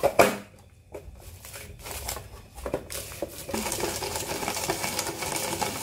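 Roasted peanuts being crushed in a hand-operated red plastic crusher: a sharp click at the start, then a dense rattling, crunching clatter of nuts breaking inside the plastic box, louder in the second half.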